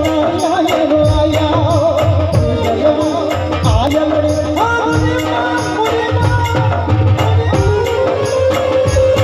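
Live amplified Indian folk-devotional music: a singer's ornamented, wavering vocal line over quick, steady dholak drum strokes, giving way about halfway through to long held notes from the harmonium and keyboard.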